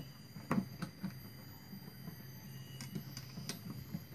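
Thin iron wire being twisted by hand through a plastic bucket lid: a few scattered small clicks and ticks of wire against plastic, over a low steady hum.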